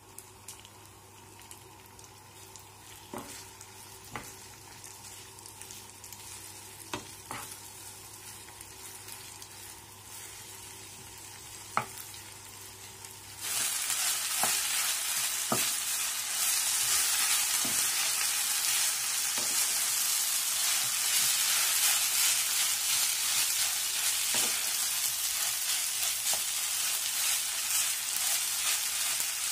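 Shredded potato frying in a nonstick pan, stirred with a wooden spatula. For the first half there is only a low hum and a few light taps; then the sizzling starts suddenly and loud, with the spatula knocking and scraping through it.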